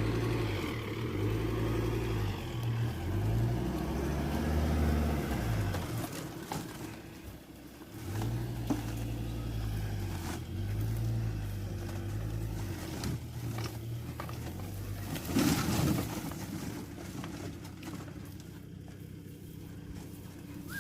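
Ford Ranger's 3.2-litre five-cylinder turbodiesel engine running while driving off-road, its revs rising and falling. The engine note drops away about six seconds in and picks up again two seconds later. A brief louder rattle comes about fifteen seconds in.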